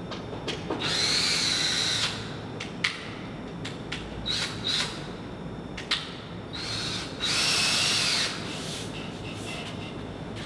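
Cordless drill running in short bursts: two runs of about a second each, one near the start and one about three quarters of the way in, with a few brief squeezes between them. Sharp clicks come in between the runs.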